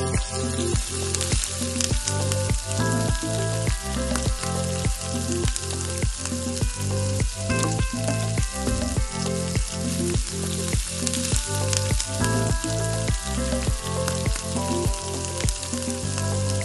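Sliced onions sizzling in hot oil in a pan, the hiss starting as they drop in, over background music with a steady beat.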